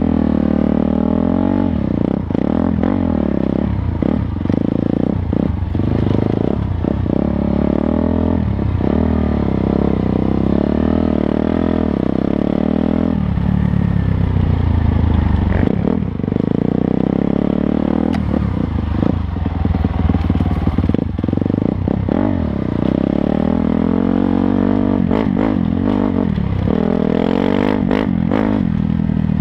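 Dirt bike engine being ridden on a rough trail, its revs rising and falling over and over as the throttle opens and closes, with frequent knocks and rattles.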